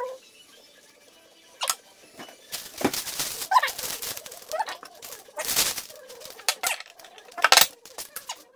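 A plastic salad bag crinkling and rustling in two bouts as rocket leaves are pulled out and scattered onto a wrap, ending in a sharp click near the end. A few short faint pitched calls sound in between.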